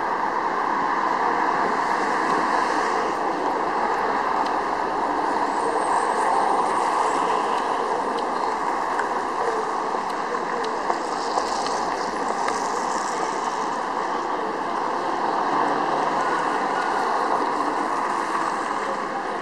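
Steady city traffic noise: a continuous wash of passing cars with no single vehicle standing out.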